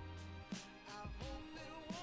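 Background music with a beat and a bass line.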